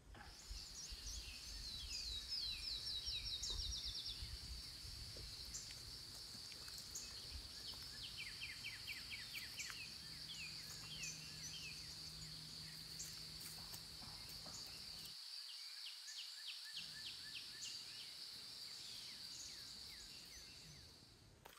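Faint outdoor morning ambience: insects keeping up a steady high-pitched drone, with birds chirping over it, including a couple of quick runs of repeated notes.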